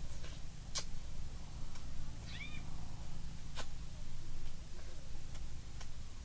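Eating sounds from fried eel being eaten with chopsticks and fingers: two sharp clicks and a few fainter ones. About two and a half seconds in comes one short animal call that rises and falls in pitch.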